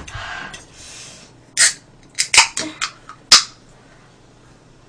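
Aluminium soda can of Coca-Cola being handled and opened: several sharp clicks and taps, ending in the loudest crack about three and a half seconds in.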